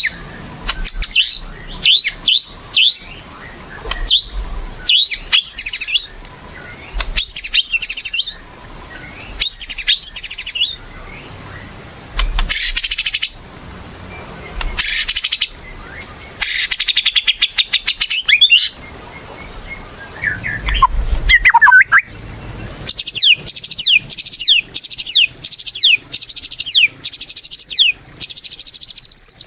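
White-rumped shama (murai batu) singing in full, vigorous song: loud phrases of whistles and rapid chattering notes, separated by short pauses. Near the end comes a run of quick, evenly repeated notes.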